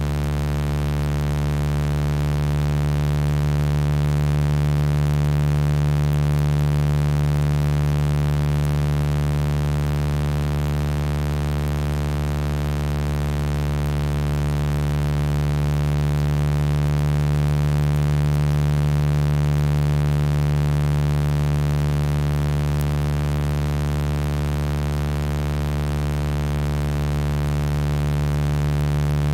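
Sound-healing frequency tones synthesised from a voice sample: a steady electronic drone of several held pitches, the strongest a low hum, slowly swelling and easing in loudness.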